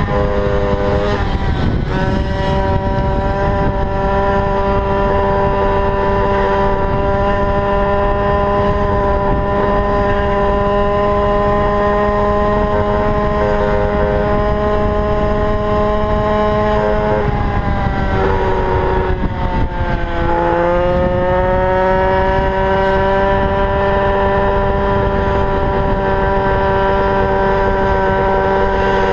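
Goped's GP460 two-stroke engine running hard at a steady high pitch, dropping sharply in pitch about two thirds through and climbing back up. It carries the funny sound at wide-open throttle that the owner is asking about.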